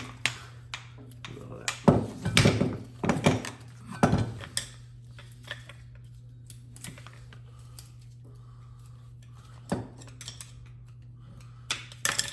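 Metal sprayer parts and hand tools clattering and knocking as the airless paint sprayer's pump section is worked apart: a bunch of clinks and knocks about two to four seconds in, then single knocks near ten and twelve seconds, over a steady low hum.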